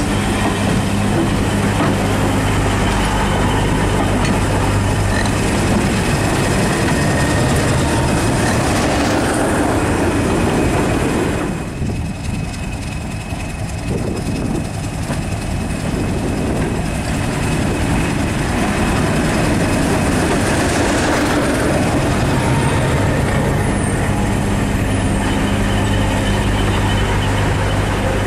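British Rail Class 31 diesel locomotive running under power as its train of coaches rolls past on the rails, a loud, steady engine drone over the rumble of the wheels. The sound dips briefly about twelve seconds in, then the engine and rolling train sound return at the same level.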